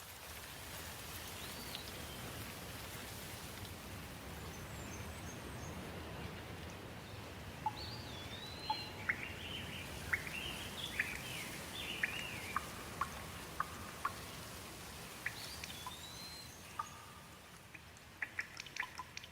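Steady rain with songbirds calling over it: a few rising whistled notes and a run of quick chirps in the middle. Sharp drips start near the end.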